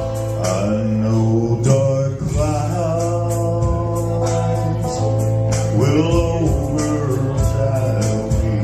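Live band music: guitar over a steady bass and drum beat, with a lead melody that slides between notes.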